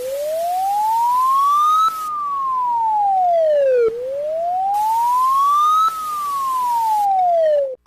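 Emergency siren wailing: its pitch rises for about two seconds and falls for about two, two full cycles, over a background hiss that comes and goes.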